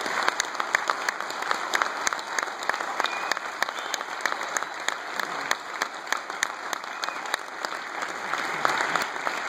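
Audience applauding steadily: a dense patter of many hands clapping at an even level.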